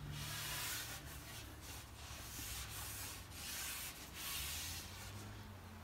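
Cotton rag wiping excess oil-varnish finish off a wooden board: a run of about five or six soft rubbing strokes, over a steady low hum.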